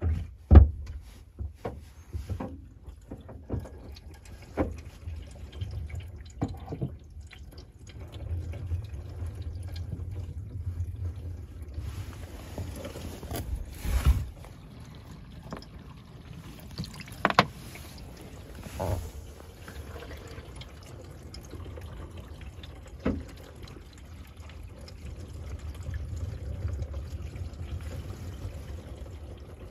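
Garden hose spraying water over the outside of the car, heard from inside the cabin as muffled splashing that comes and goes, with a few sharp knocks. It is a water test to find where a leak gets into the footwell.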